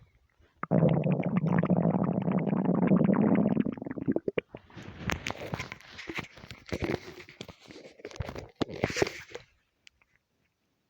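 Human stomach rumbling: one long, loud growl lasting about three seconds, then a run of irregular gurgles and squelches that stop about a second before the end. The gut is half hungry and half gassy from overeating.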